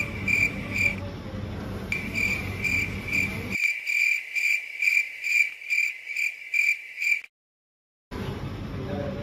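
Cricket chirping, a high pulsed chirp repeating about two to three times a second with a short break about a second in. It runs on after the room sound under it cuts out, which marks it as an added sound effect, and it stops suddenly about seven seconds in, leaving a moment of dead silence.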